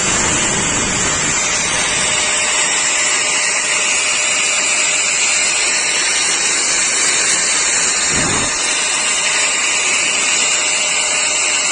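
Kenyuprime 1200 W electric grinder running steadily, a loud even motor noise with a high whine. There is a brief low bump about eight seconds in.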